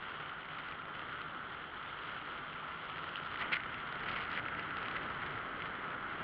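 Steady rushing noise of wind and road from a moving velomobile, recorded by a camera on its nose, with a few short clicks, the sharpest about three and a half seconds in.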